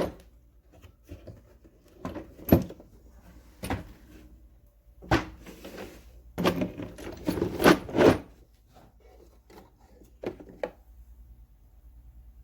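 Hex bit socket set being handled while it is opened: a series of clicks, knocks and light metal clatter, busiest about six to eight seconds in, then two last clicks.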